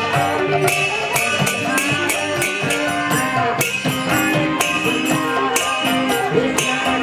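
Devotional kirtan music with hand cymbals striking a steady beat about twice a second over held melodic tones.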